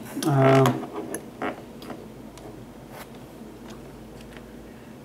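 Scattered small clicks and taps, irregular and a few per second at most, from hands handling the headlamp bulb's wire leads and the lithium cells; the sharpest click comes about a second and a half in.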